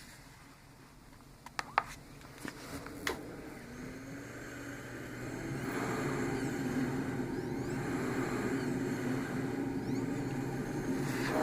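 A few sharp clicks, then a ResMed AirMini travel CPAP's blower gets louder from about four seconds in and settles into a steady rush of air, running at 10 cmH2O with flex at 3.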